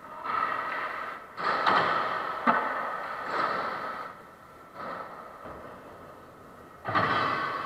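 Skateboard wheels rolling on a concrete floor, rising and fading in several swells as riders pass, with one sharp clack about two and a half seconds in.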